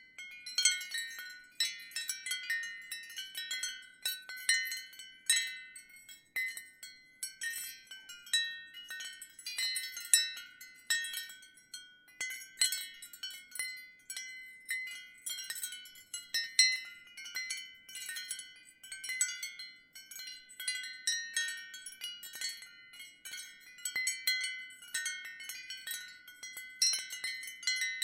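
Ceramic wind chimes stirred by a gentle breeze, tinkling lightly. Irregular strikes come several times a second, each ringing briefly at high pitch and overlapping the next.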